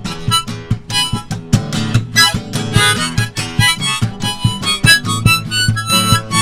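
Harmonica playing a blues line over a steadily strummed acoustic guitar.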